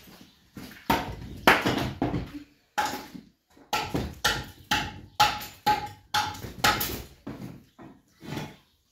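A long-handled tool striking a concrete block on the floor, a rapid series of sharp knocks about two a second, some with a short ring, growing weaker toward the end.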